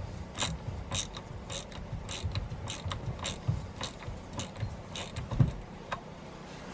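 Irregular light mechanical clicks and knocks, a few a second, with a heavier thump about five and a half seconds in.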